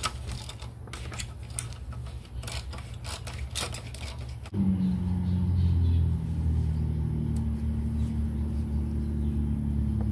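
Clicking and rubbing as the Jeep Gladiator's oil filter housing cap is unscrewed by hand. A little under halfway through, a steady low drone starts abruptly and carries on.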